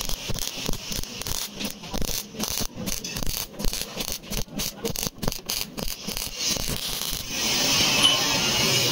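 MIG welder arc crackling and spitting in short bursts with brief breaks while running a seam on sheet steel. About seven seconds in the crackle stops and a steady hiss follows.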